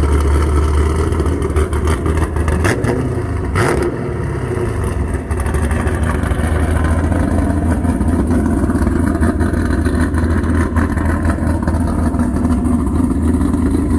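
A 414-cubic-inch stroker V8 with a custom camshaft, idling loudly through long-tube headers, high-flow cats and a Corsa cat-back exhaust. The revs rise briefly once, about three and a half seconds in.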